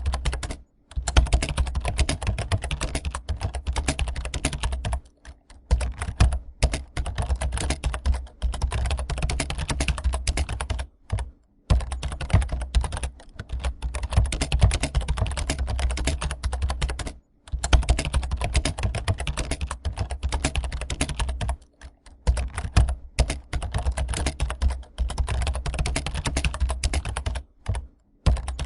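Fast, continuous typing on a computer keyboard: a dense stream of key clicks broken by a few short pauses.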